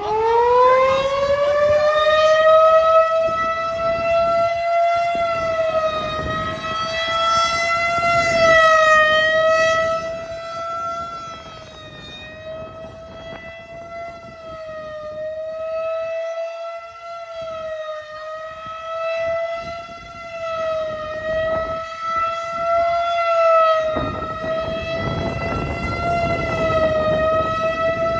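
Federal Signal 2001-130 electromechanical tornado siren finishing its wind-up to full pitch in the first second or two, then sounding a steady high wail in its fast-wail test cycle. The wail wavers slightly in pitch and swells and fades in loudness. A low rushing noise rises under it in the last few seconds.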